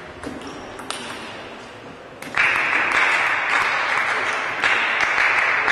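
A couple of sharp table tennis ball hits as the rally ends. About two seconds in, applause breaks out across the hall and carries on, for the point that closes a game.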